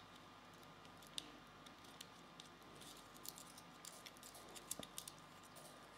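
Near silence, with scattered faint clicks of the small plastic parts and wire connector of a 3D printing pen being handled, a few of them close together near the end.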